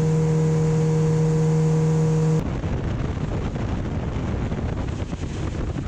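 Motorboat engine running at a steady speed, a steady drone over rumbling water and wind noise; about two and a half seconds in it cuts abruptly to a rougher, noisier rumble.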